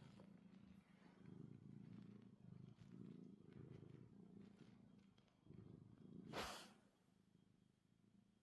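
Tuxedo cat purring softly in steady pulses, with one brief louder rustle-like noise about six seconds in.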